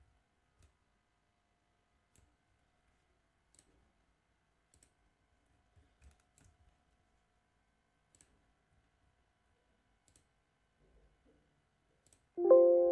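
Faint, scattered computer mouse clicks, a few seconds apart. Near the end a loud bell-like chime with several tones strikes suddenly and slowly fades.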